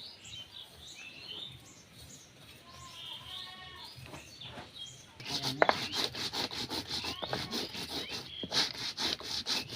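Birds chirping, then from about five seconds a dense, irregular run of sharp clicks and knocks, several a second, that becomes the loudest sound.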